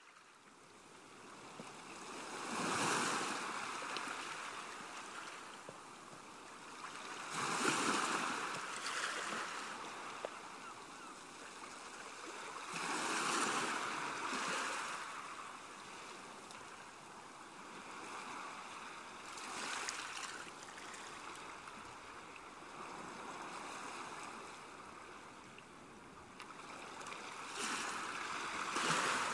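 Small waves washing up onto a sandy beach: a steady wash of surf that swells five times, about every five to six seconds, as each wave breaks and runs up the sand.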